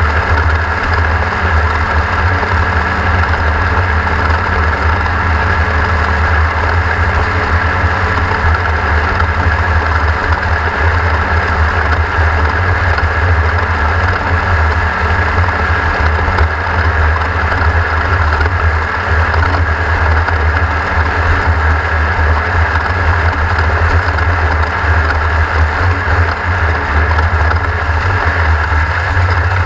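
A racing engine running steadily and loudly, with a heavy low hum and no rise or fall in pitch.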